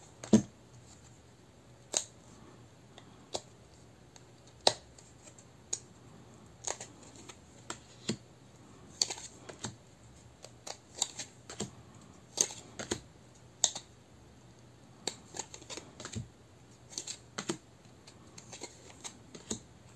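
Tarot cards being turned over and set down one at a time, as the deck is counted card by card. Each card makes a short, light click or tap, at an uneven pace of about one or two a second.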